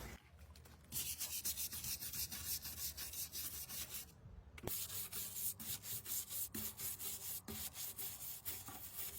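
Brisk back-and-forth abrasive rubbing on a weathered wooden garden seat, several strokes a second, working it clean of grime and stains before it is treated. The strokes pause briefly about four seconds in, then carry on.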